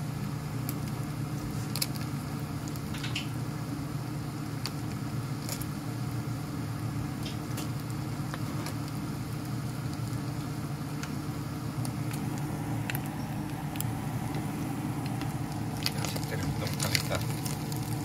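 Chicken pieces frying in a nonstick pan, with scattered pops and crackles of spattering fat that come thicker near the end, over a steady low hum.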